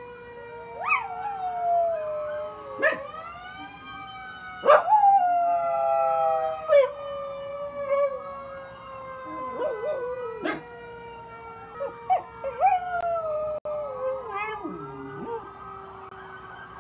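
A dog howls in repeated wavering, rising-and-falling cries, the loudest about five seconds in, along with a fire truck siren that holds a steady tone slowly sliding lower in pitch underneath.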